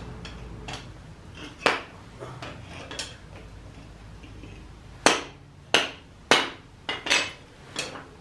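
Sharp metal knocks, like hammer strikes, on a steel ingot mold as the freshly cast brass ingot is freed: one early, then a run of six about half a second to a second apart in the second half.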